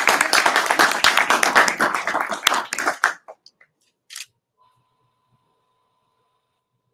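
Applause from a small group, many quick overlapping hand claps, stopping abruptly about three seconds in. A single short click follows about a second later.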